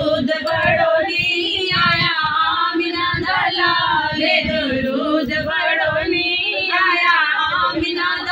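A naat, a devotional song in praise of the Prophet Muhammad, sung by female voices in a wavering, melismatic melody.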